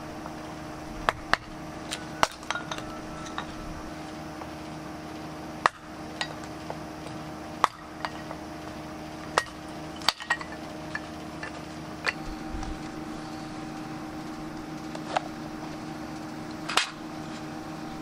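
Metal camp cooking gear being handled while setting up to cook rice: about a dozen sharp clinks and knocks at irregular intervals, a few with a brief metallic ring, over a steady low hum.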